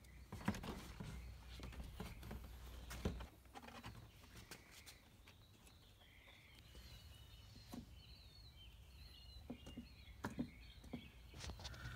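Faint, scattered plastic clicks and knocks from the blower motor housing being worked loose from under the dashboard and handled. Faint bird chirps in the background in the latter part.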